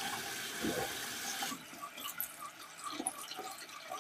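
Tap water running into a sink and splashing over a small die-cast toy car held in the stream. About a second and a half in, the steady rush drops away, leaving lighter splashing and drips.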